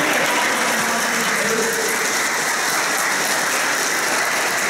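Audience applauding: steady, dense clapping of a crowd of many hands.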